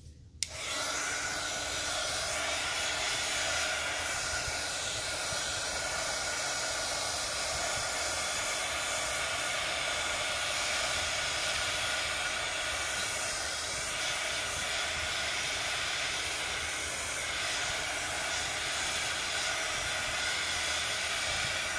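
Handheld craft heat gun switched on with a click about half a second in, then blowing steadily to dry a wet paper journal page.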